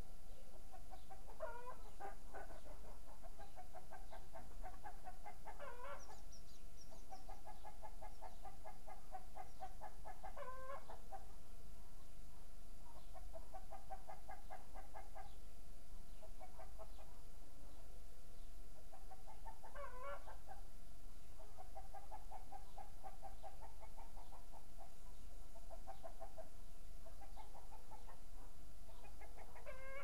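Domestic hen cackling: several runs of quick clucks, some capped by a louder rising squawk.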